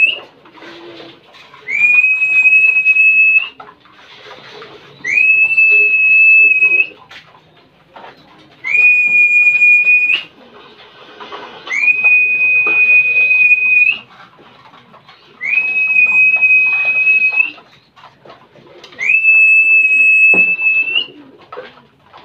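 A long, steady, high whistle, repeated six times about every three and a half seconds. Each one slides up at the start, holds one pitch for about two seconds and lifts slightly at the end. Racing pigeons coo softly in the loft between the whistles.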